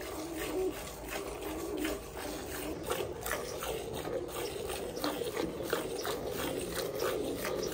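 Milk squirting by hand from a cow's teats into a steel pail part-filled with milk, a rhythmic swish of streams about twice a second.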